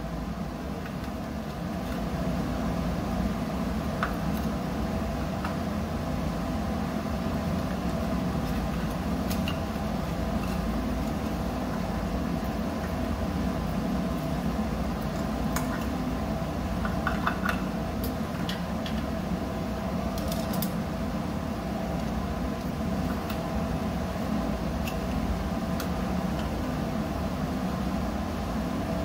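Steady mechanical hum of running machinery, with a few light clicks and taps from hand tools working wires into a plastic junction box.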